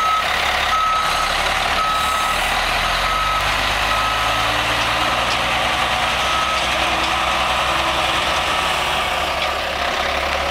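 1993 International 8100 single-axle dump truck backing up: its reverse alarm beeps about once a second and grows fainter as the truck moves away, over the steady running of its engine.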